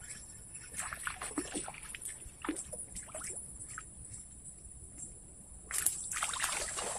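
Hooked snakehead thrashing and splashing at the surface of shallow, weedy water as it is reeled in, in short irregular splashes, the busiest splashing about six seconds in.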